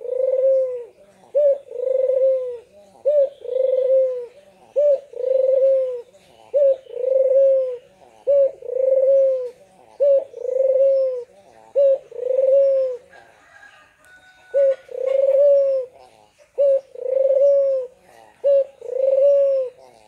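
Barbary dove (puter) cooing: a short note followed by a longer, arched coo, repeated about ten times at a steady pace, with one brief pause about two-thirds of the way through.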